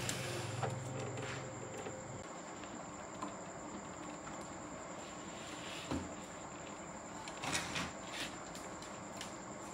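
A wooden subwoofer cabinet being shifted, with a low rumble in the first two seconds, then a few scattered clicks and knocks as cables are plugged into its rear amplifier panel, over steady hiss and a constant high thin whine.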